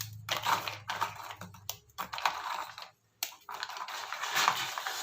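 Crisp biscuits being snapped and crumbled by hand, a run of dry crackling bursts with a brief pause about three seconds in.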